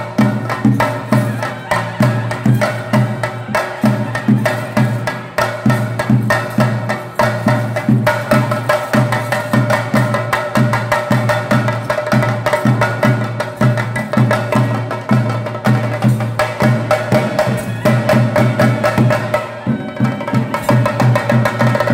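Chenda drums beaten with sticks in a fast, steady rhythm, with a brass wind instrument holding a long, steady note over them: the percussion ensemble that accompanies a theyyam performance.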